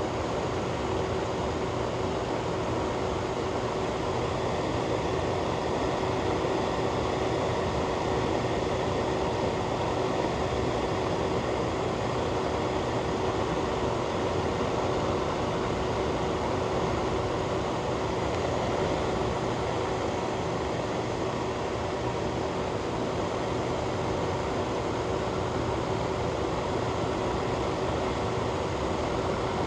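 Ventilation fan running steadily: an even rush of air with a constant low hum.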